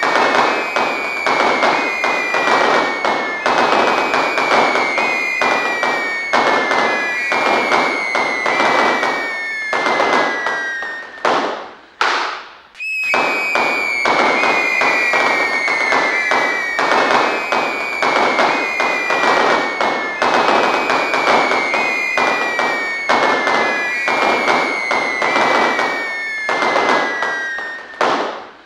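Fireworks going off in a dense, continuous crackle, with shrill whistles about once a second, each falling slightly in pitch. About eleven seconds in the sound swoops down and cuts out for a moment, then starts again at full strength. The same drop comes again near the end.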